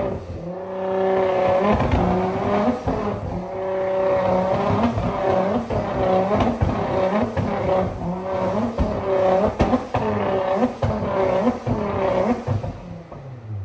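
Nissan GT-R R35's twin-turbo V6 revved hard again and again on a chassis dyno, the pitch rising and falling about once a second, with sharp exhaust pops and bangs as it spits flames from the tailpipes. Near the end the revs drop away and the engine winds down.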